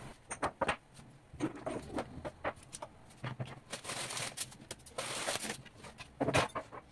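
Kitchen countertop being tidied by hand: small clicks and knocks of utensils and a knife being picked up and set down, with a stretch of rustling as the counter is wiped with a cloth, and a louder knock or two near the end.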